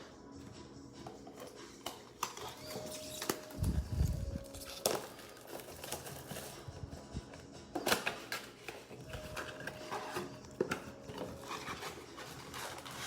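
Handling noise from a trading-card blaster box being opened: crinkling plastic wrap, cardboard and card packs, with scattered sharp clicks and a dull thump about four seconds in.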